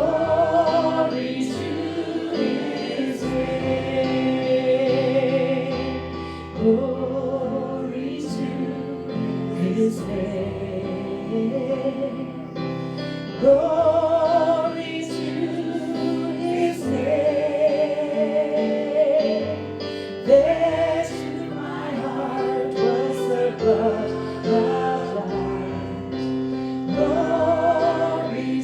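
Gospel worship music: voices singing long held notes with vibrato over steady sustained accompaniment.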